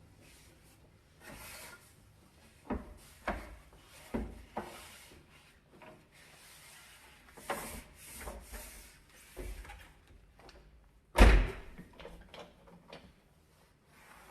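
Kitchen cleaning handling sounds at a stove: short rubbing and scrubbing strokes and scattered light knocks of things being handled or set down, with one heavy knock about eleven seconds in.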